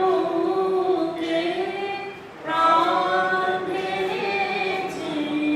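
Singing voices holding long notes in slow phrases, with a new phrase starting about two and a half seconds in.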